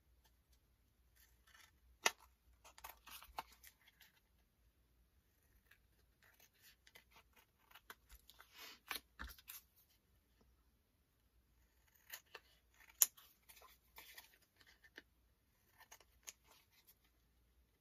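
Scissors snipping through greeting-card stock in three runs of short cuts, with a couple of sharper clicks from the blades closing, about two seconds in and again about thirteen seconds in.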